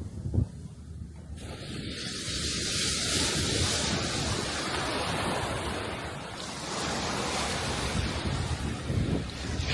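Sea waves washing onto the shore, the surge swelling about a second and a half in, with wind gusting against the microphone.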